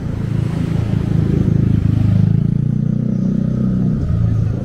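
Street traffic: a motor vehicle's engine passing close by, loudest about two seconds in, over a steady low traffic hum.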